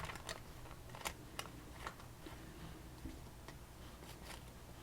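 Faint, scattered light clicks and taps, roughly one every half second, from lock-picking tools being handled.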